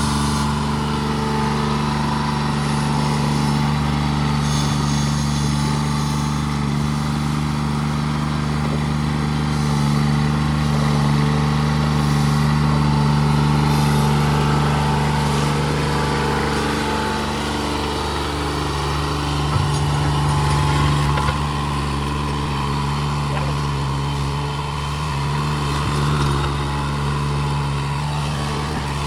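Steiner 430 tractor's engine running steadily while the machine is driven slowly.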